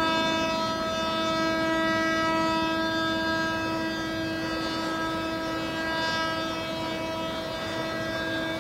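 Speedboat's outboard motor running at speed, a steady engine whine held at one pitch with a ladder of overtones.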